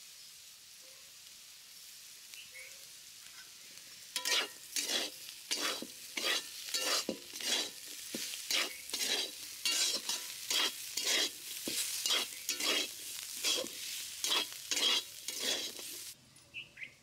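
A metal spatula scrapes and stirs crisp-fried bitter gourd and potato sabzi around a steel kadhai in quick, regular strokes, about two a second. The stirring starts about four seconds in and stops suddenly near the end.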